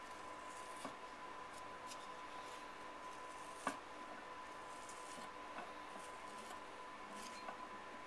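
Scrap-wood carving tool scraping soft clay as a footring is trimmed on an upturned pot: faint, intermittent scratching strokes with a small knock about three and a half seconds in.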